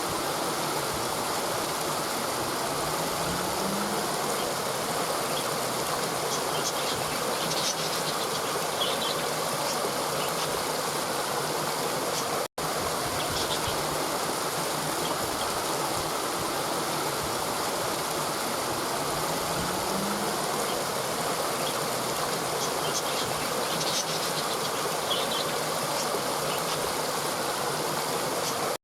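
Steady rush of a mountain river's water flowing over rocks, with faint high chirps now and then. The sound cuts out briefly about halfway through, and the same stretch of recording repeats.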